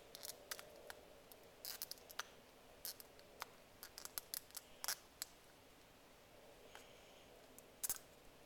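Hard plastic toy parts clicking and snapping as they are handled and fitted together: a scatter of short, sharp clicks through the first five seconds, then a quick cluster near the end.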